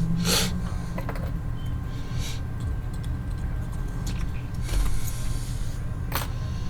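Small metal rotary-engine seals and springs being handled: a few scattered light clicks and rattles over a steady low hum.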